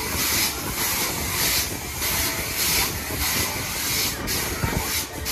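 Tagada bowl ride's pneumatic rams hissing in rapid, regular pulses, a little under two a second, as the spinning bowl is bounced, over a steady low rumble.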